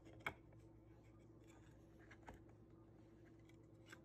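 Near silence: faint room tone with a low steady hum and three faint light taps.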